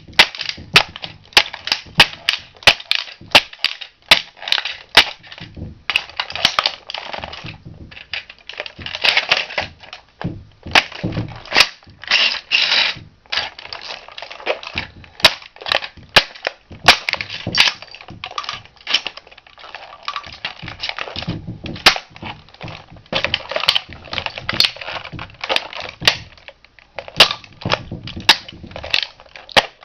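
A toy model car being crushed under a shoe: rapid sharp snaps and cracks of the model breaking, mixed with stretches of grinding crunching as the pieces are trodden on.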